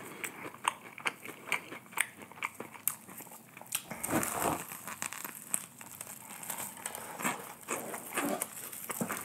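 Close-miked crunching and chewing of crispy KFC fried chicken: many small crackles of the breading, with a louder bite about four seconds in.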